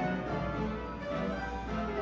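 Instrumental background music: a melodic tune of sustained notes shifting every half second or so.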